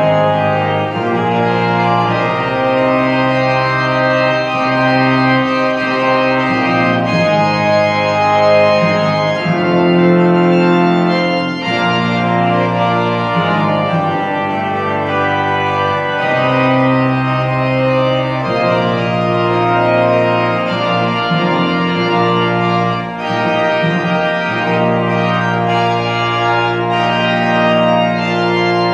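Organ music: slow, held chords that change every few seconds.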